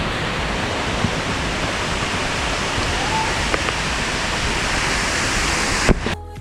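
Steady rush of a waterfall more than 30 metres high, a dense even noise with no rhythm. It cuts off abruptly with a click near the end.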